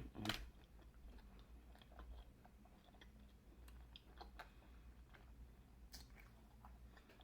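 Faint chewing and small wet mouth clicks from someone eating a sauced shrimp, with a few slightly sharper clicks scattered through.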